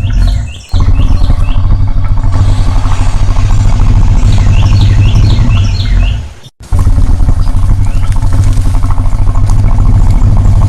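Crocodile bellowing: a loud, deep, rough rumbling growl that cuts out briefly twice, about half a second in and again about six and a half seconds in. Birds chirp over it near the start and around five seconds in.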